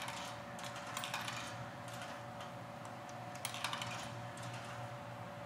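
Vending machine being used to buy a drink: three clusters of sharp clicks and light clatter, near the start, about a second in and about three and a half seconds in, over a steady hum.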